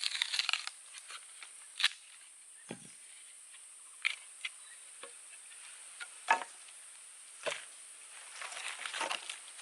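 A steady high-pitched insect drone, with scattered sharp knocks and clicks and short spells of rustling from things being handled.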